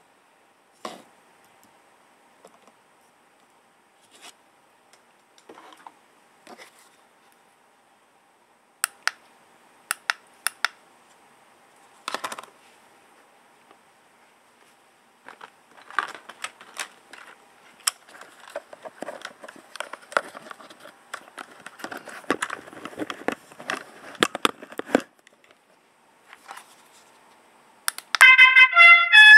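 Scattered clicks and handling noises, then a busier stretch of clicking and rustling. Near the end a loud trumpet-like call starts playing through loudspeakers: the pigeon-loft training and release sound effect set off by a wireless remote.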